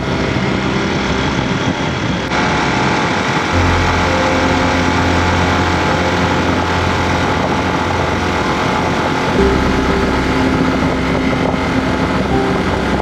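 Yamaha Serow 250's single-cylinder engine running steadily, its low note changing a few times.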